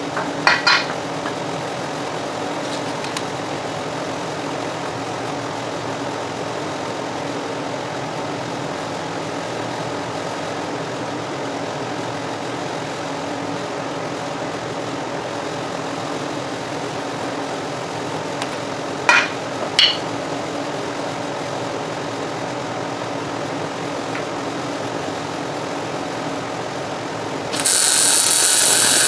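Shop machinery running with a steady hum, with two short sharp clicks a little past midway. Near the end a loud hiss starts abruptly and runs for about three seconds.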